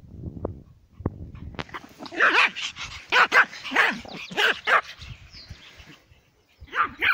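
Small dog barking: a quick run of about seven high-pitched yapping barks starting about two seconds in, then one more bark near the end.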